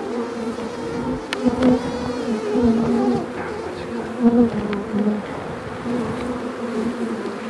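Honeybees buzzing around an opened hive, a steady hum that wavers in pitch, with a few faint clicks. The beekeeper reads the colony as having turned more defensive after taking in some angry bees.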